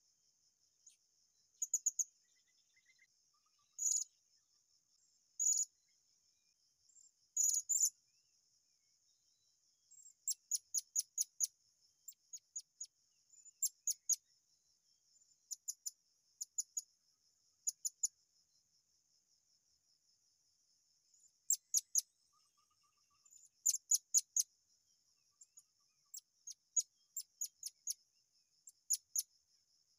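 Small birds calling: sharp, high-pitched chirps, some single and some in quick runs of five or six, over a steady high insect drone.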